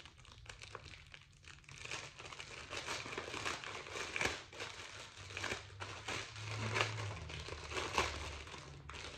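Plastic packaging crinkling and crackling as it is squeezed and pulled at while someone tries to get it open, busier from about two seconds in, with a few louder crackles.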